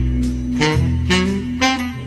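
Background music with a steady beat, about two beats a second, under held melody notes.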